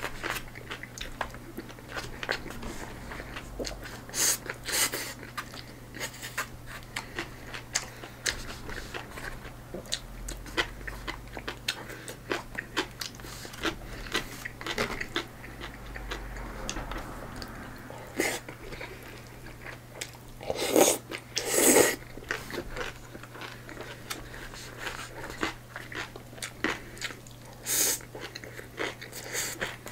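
A person chewing food close to the microphone, mouthful after mouthful of rice and stir-fried eggplant, with small clicks of chopsticks against a plastic bento tray. Two louder, noisier sounds come a little over two-thirds of the way through, over a steady low hum.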